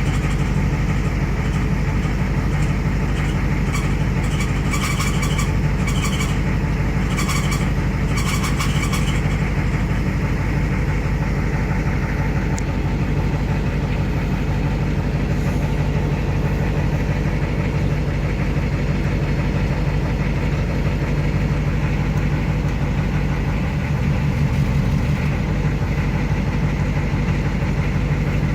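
Ford IDI diesel engine idling steadily, with a faint steady high squeal from the ZF5 five-speed manual transmission: the rear countershaft bearing race spinning in its bore in the case. A few short hissy pulses come in between about four and nine seconds in.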